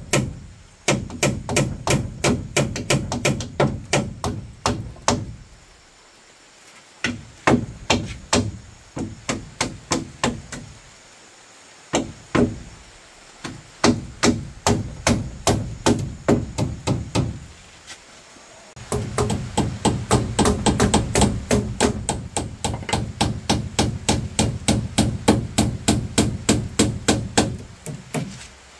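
Hammer blows struck in quick steady runs of about three a second, broken by a few short pauses.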